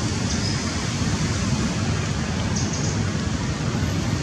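Steady rushing background noise, even throughout, with a couple of brief faint high chirps near the start and again a little past halfway.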